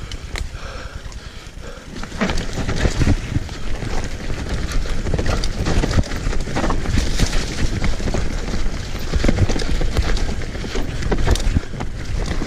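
Mountain bike riding down a dirt singletrack: the bike knocking and rattling over roots and rocks, over steady tyre and rushing-air noise. It is a little quieter for the first two seconds, then louder as the ride picks up.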